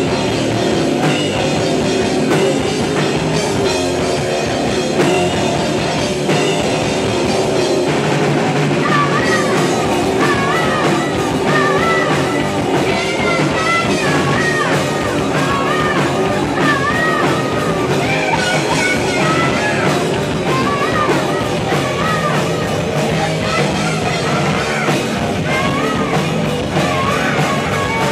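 Live rock band playing, with electric guitars, bass guitar and drum kit. A high wavering lead line comes in about nine seconds in.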